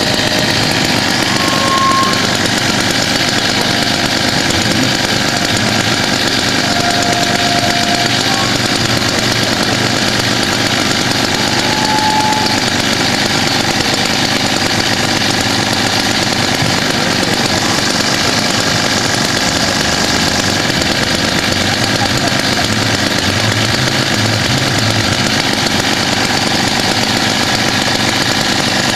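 A small engine running steadily at an even speed, loud and unbroken, like the power unit of rescue equipment.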